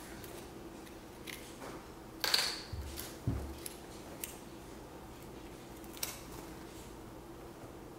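A few light, crisp crackles and two soft knocks over a faint steady hum: a wafer cookie being handled and passed over a plastic high-chair tray.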